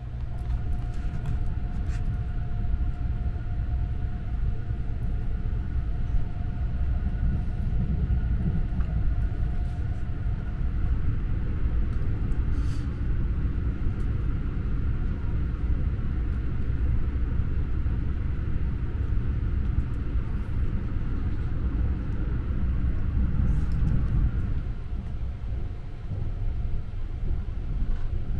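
Steady low rumble of the Sunrise Izumo sleeper train, a 285 series electric multiple unit, running along the line, heard from inside a private compartment. A faint steady hum sits over it, with a few light clicks.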